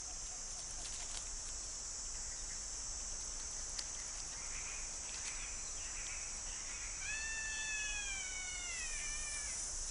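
Night forest ambience: a steady, high-pitched insect chorus. About seven seconds in, a single animal call sounds for two to three seconds, high and drawn out, falling slightly in pitch.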